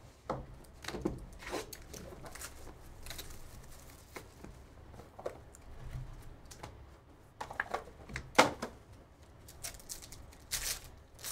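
Hands handling sports-card boxes and packs on a table: scattered taps, knocks and rustles of cardboard boxes and cards, with one sharper knock past the middle. Near the end a foil card pack crinkles and tears briefly.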